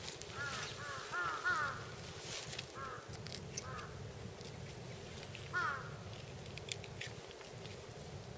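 Crows cawing: a quick run of harsh caws in the first two seconds, then single caws spaced out over the next few seconds.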